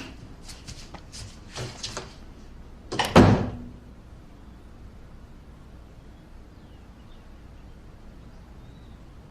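A few light clicks and knocks, then one heavy thunk just after three seconds in, followed by quiet room tone.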